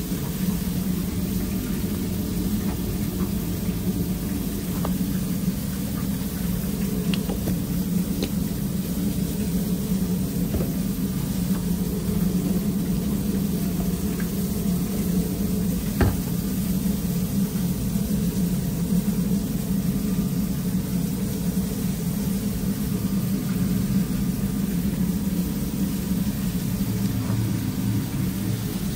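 Steady low hum of commercial kitchen equipment, with a few light clicks and knocks from buns and squeeze bottles being handled. One sharper knock comes about halfway through.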